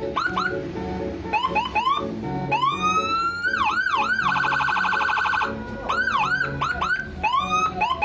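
Electronic vehicle siren sounding through its amplifier as the buttons of its control panel are pressed: short rising whoops, longer sweeps up and down, and about a second of fast warble in the middle.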